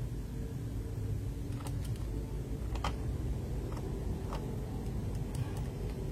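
A steady low rumble with a handful of faint, scattered clicks, like small plastic mechanical keyboard switch parts being handled.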